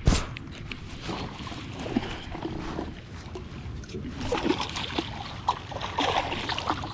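Splashing water and knocks against a kayak as a bass is fought to the boat and landed. A sudden loud hit at the very start is the loudest sound, followed by scattered splashes and knocks that grow busier over the last few seconds.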